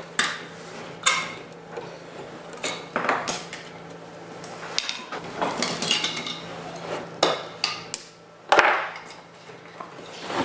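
Scattered clicks and taps of a small screwdriver and wire against an aluminium extrusion frame and a workbench as wires are pressed into the frame's slot, with one heavier knock near the end as a tool is put down. A faint steady hum runs underneath.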